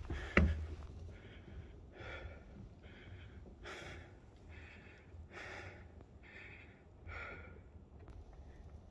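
A person breathing hard while climbing a steep staircase, short breaths in and out following each other about every half second to second. A sharp footfall on a metal stair tread comes just after the start.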